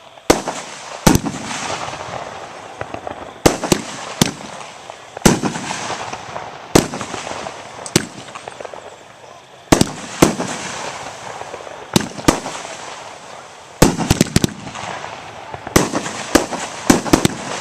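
Aerial fireworks bursting overhead one after another, each a sharp bang trailing off in an echo. There is a quick string of bangs near the end.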